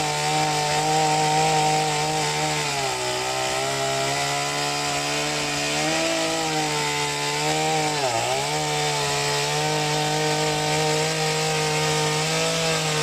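Two-stroke chainsaw engine running at high speed with a steady buzzing note. Its pitch sags for a few seconds after about 2.5 s, dips sharply and recovers about 8 s in, then starts to fall away at the very end.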